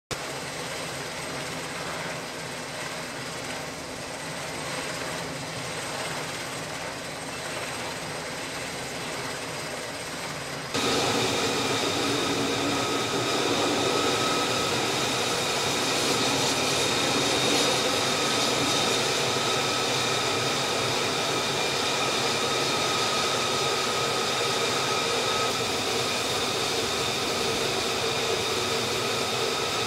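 F-35C's single F135 turbofan jet engine running at low power as the jet taxis on a carrier flight deck: a steady whine over a hiss, jumping up abruptly in loudness about eleven seconds in.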